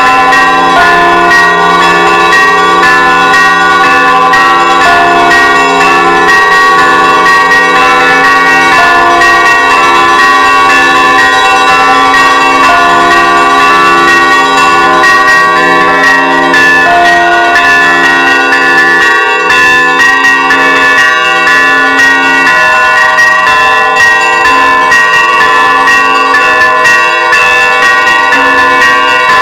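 Russian Orthodox church bells ringing a loud, continuous Easter peal: many bells of different pitches struck over and over together, the lower bells in a steady repeating pattern.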